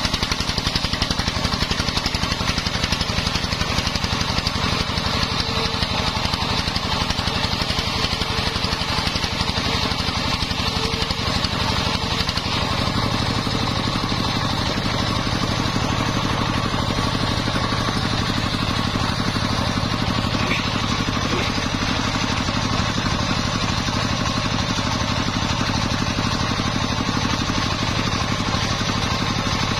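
Engine-driven, home-built circular saw bench running steadily as its blade rips sengon timber into boards. The machine's low running note shifts about twelve seconds in.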